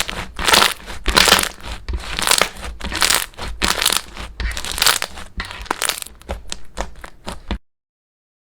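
Slime being squeezed and pressed by hand, giving a run of crackly, crunchy squishes about one or two a second. The sound cuts off suddenly near the end.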